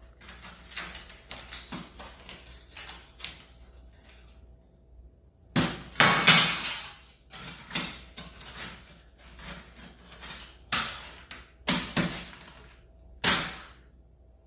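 A metal utensil scraping and knocking on a metal baking tray, prying hardened dalgona sugar candy loose: a run of scrapes and clinks, with the sharpest knocks about six seconds in and several more toward the end.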